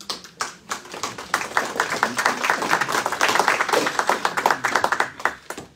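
Audience applauding: many people clapping, building up over the first second or so and dying away near the end.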